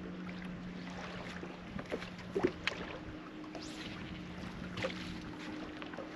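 Steady electric hum of a bass boat's bow-mounted trolling motor, its pitch shifting about halfway through, with a few light knocks on the boat.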